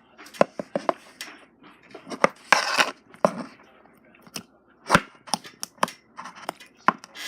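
Hands squishing and stretching slime, giving off irregular sticky clicks and pops, with a longer crackle about two and a half seconds in.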